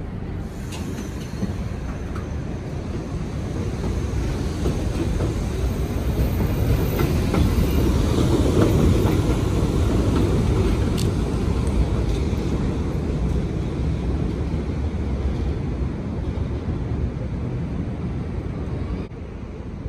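R62A subway train on steel rails pulling out of an elevated station: a steady rumble with scattered clicks from the wheels, swelling to its loudest about eight to ten seconds in, then fading as the train moves off.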